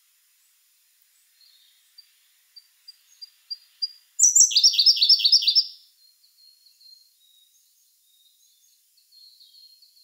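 Siberian blue robin singing: a run of thin, high introductory notes that come faster and louder, then a loud, rapid trilled phrase lasting about a second and a half.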